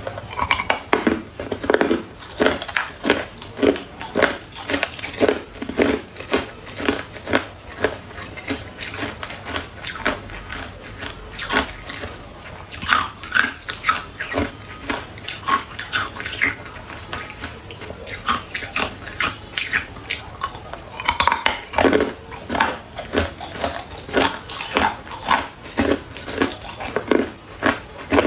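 Hard ice cubes being bitten and chewed: a rapid run of sharp, cracking crunches that thins out in the middle and picks up densely again about two-thirds of the way through.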